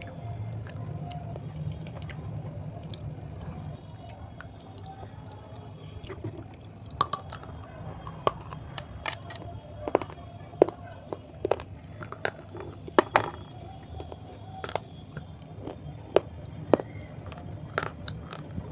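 Dry clay roll crunching and cracking as it is eaten and broken: irregular sharp snaps, sparse at first and coming thick from about seven seconds in, over a steady low hum.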